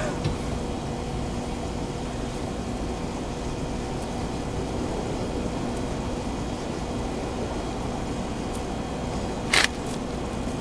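Steady mechanical hum with a faint constant tone in it, like a running fan, and one sharp click about nine and a half seconds in.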